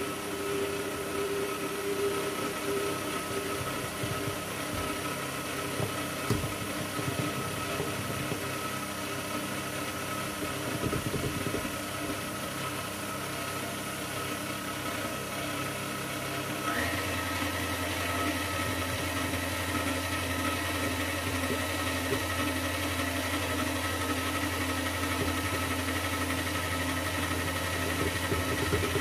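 Electric stand mixer running steadily, beating pancake batter in its steel bowl. A little past halfway its hum shifts to a slightly louder, steadier note with a higher whine added.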